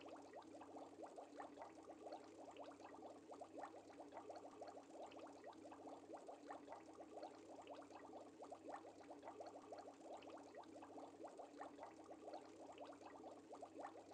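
Faint, steady bubbling of aquarium water, a dense patter of small bubbles over a low hum.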